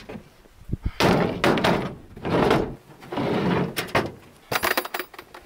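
Camping gear being handled in a pickup truck bed: a hard case is lifted out and set down on the slide-out tray, giving a string of knocks and thuds with rattling clatter between them.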